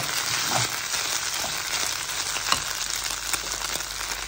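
Marinated chicken pieces sizzling as they fry in hot oil in a pan, frying until lightly crisp. A steady hiss with a few short clicks.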